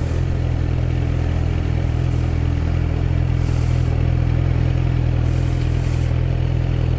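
Loud inline-four engine of a Yamaha Fazer motorcycle with a straight-through exhaust, running at low, steady revs as the bike rolls slowly in traffic.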